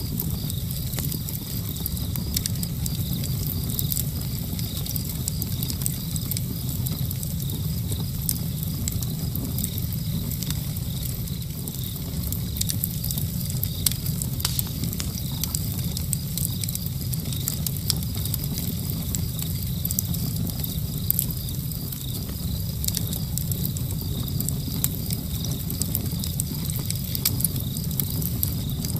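Steady low rumble and hiss with many faint crackles and clicks scattered throughout.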